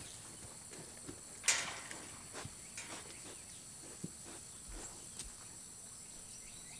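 Faint rustling of pigs rooting in dirt and straw, with one sharper rustle about a second and a half in. A steady high chirring of insects runs underneath.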